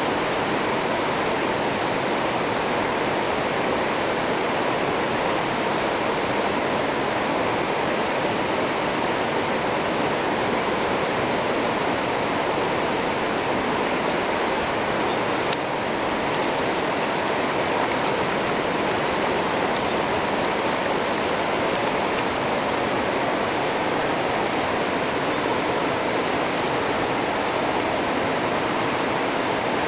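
River rapids rushing over rocks: a steady, unbroken wash of flowing water.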